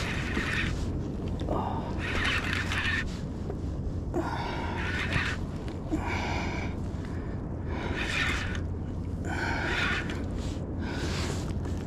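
A person breathing hard, with heavy in-and-out breaths coming about every one and a half to two seconds over a steady low rumble of wind and water. The breathing is from the strain of fighting a large leerfish on a bent rod.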